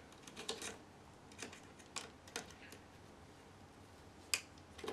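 Screwdriver tip prying at the metal hinge piece inside an Apple Cinema Display's aluminium stand: a scatter of small sharp metal clicks and ticks, the sharpest about four seconds in.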